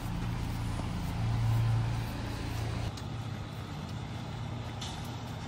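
Motor vehicle engine running with road and traffic noise, a steady low hum that swells briefly about a second in and eases off near three seconds.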